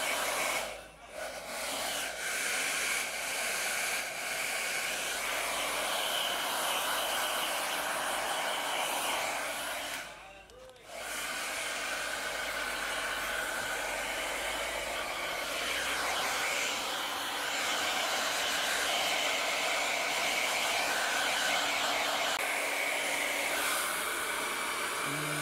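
Handheld electric hair dryer blowing a steady rush of air over a puppy's coat. The air noise drops away briefly about a second in and again for about a second around ten seconds in.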